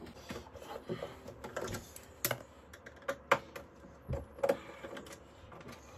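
Light, irregular clicks and taps of a screwdriver and the flue blanking plate being worked free from the flue opening of a Vaillant Ecotec Pure combi boiler, with a few sharper knocks about two, three and four and a half seconds in.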